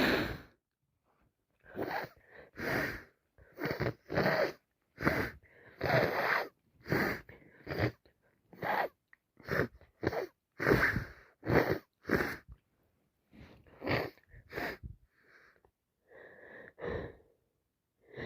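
A woman with a heavy head cold sniffing and taking wheezy breaths through a congested nose, in a long run of short noisy bursts about one a second.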